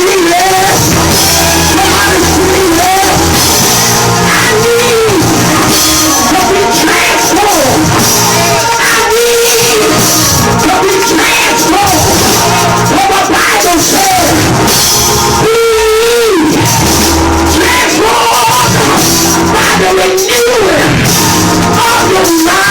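Loud music with a lead voice singing and shouting in long, bending phrases over a driving drum kit and bass.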